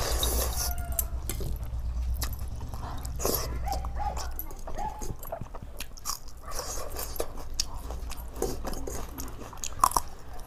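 Wet squelching and smacking of fermented water rice being mixed and eaten by hand, with chewing and lip clicks, a loud wet squelch at the start. A few short high-pitched whines break in.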